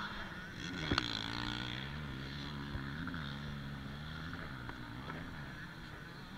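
Small motocross bike engine running at idle, its pitch wavering, with a short rise about three seconds in. A sharp knock comes about a second in.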